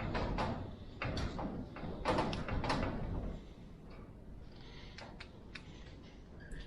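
Clicks and scraping from hand tools working parts loose from a die-cast metal toy tractor: several bursts of scraping and clicking over the first three seconds or so, then only scattered light ticks.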